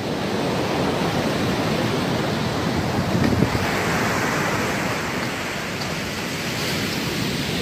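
Steady rush of surf breaking on a sandy beach, with wind blowing across the microphone.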